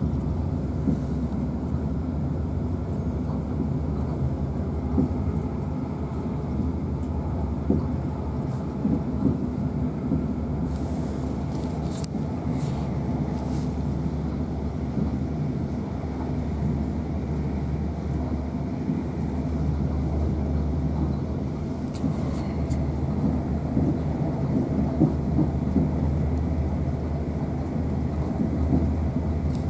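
A South Western Railway Class 450 electric multiple unit running at speed, heard from inside the passenger carriage: a steady low rumble of wheels on track with a few brief clicks.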